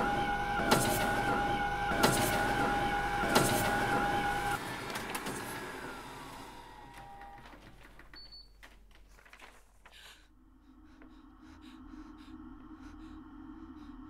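An electric machine runs with a steady two-tone hum and a sharp click roughly every second and a half, then winds down with a falling tone about four and a half seconds in and fades out. A low, eerie drone with faint ticking follows near the end.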